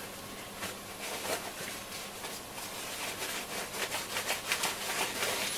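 Paper towel rubbing over the front panel of a Roberts R727 transistor radio: a run of short wiping strokes that come faster and busier in the second half.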